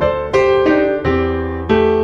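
Background piano music: a slow run of notes and chords, each struck and left ringing, about five in two seconds.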